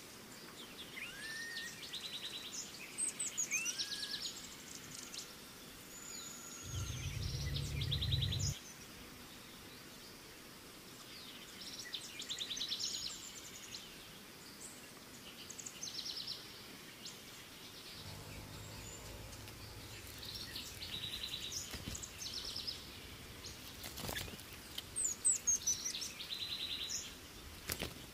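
Several forest birds calling, with repeated fast trills and short whistled notes, some sliding up or down in pitch. A brief low rumble comes about seven seconds in.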